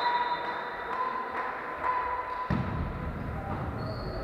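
A volleyball bouncing with low thuds on a wooden sports-hall floor from about halfway through, under a steady high tone.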